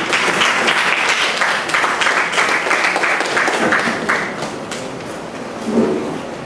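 Audience applause, many hands clapping, dying away after about four seconds. Near the end comes a short low sound.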